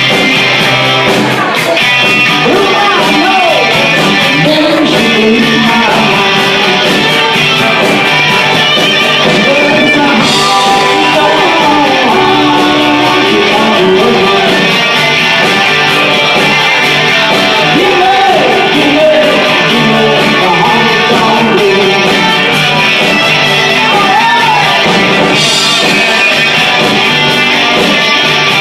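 Band playing honky-tonk music, with guitar to the fore.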